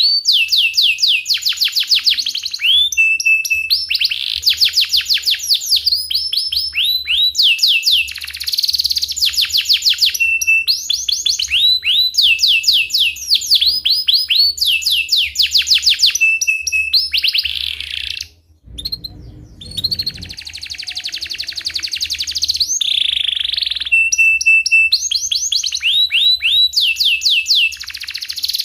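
Domestic canary singing continuously in long rolling trills: fast runs of repeated downward-sweeping notes, some phrases ending on a short steady whistle. About two-thirds through, the song breaks off for a second or two and a short low rumble is heard before the trilling resumes.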